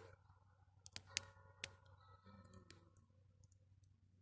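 Campfire crackling quietly: a few sharp pops, three close together about a second in, then fainter ticks.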